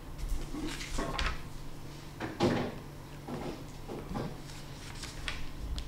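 A string of short knocks and clicks, the loudest about two and a half seconds in, over a steady low hum.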